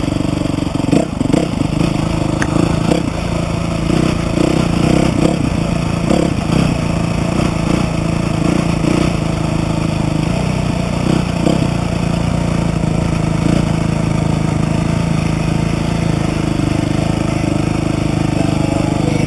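Dirt bike engine running, uneven with throttle changes and clatter in roughly the first ten seconds, then holding a steady note.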